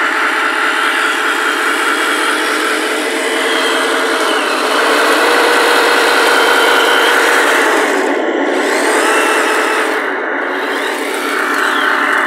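Tamiya 1/16 radio-control Sherman tank driving on asphalt: its gearboxes whir and its tracks rattle in a continuous mechanical sound. It grows louder for a few seconds in the middle, dips, then rises again as the tank comes close near the end.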